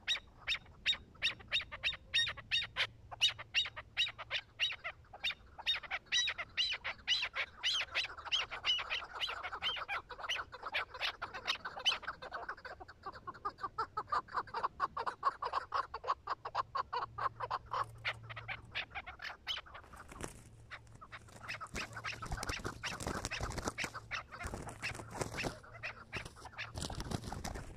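Chukar partridge calling: a long run of rapid, repeated clucking notes that grows faster and denser partway through.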